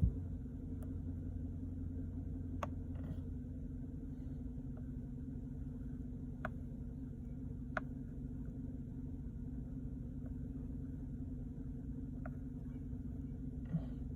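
2011 GMC 1500 pickup's engine idling steadily, a constant low rumble and hum, with a few faint sharp clicks and a thump right at the start.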